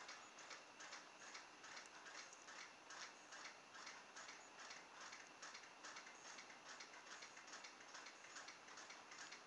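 Faint, even ticking, a few ticks a second, with little else above near silence.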